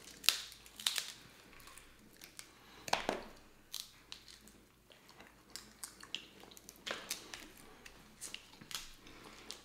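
Snow crab leg shells cracking and snapping as they are pulled apart by hand and bitten, with chewing, in scattered short cracks and clicks.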